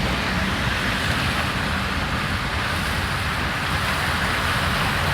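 Heavy downpour: a steady hiss of rain with a low rumble underneath.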